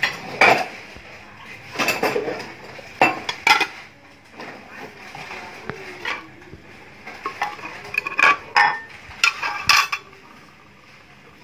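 Kitchen utensils clinking and knocking against dishes and pots in irregular strikes, stopping about ten seconds in.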